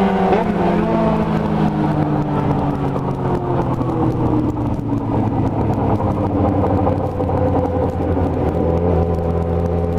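Yamaha XJ6 inline-four motorcycle engine with a four-into-one aftermarket exhaust, running at low revs: its pitch slowly falls, then holds steady.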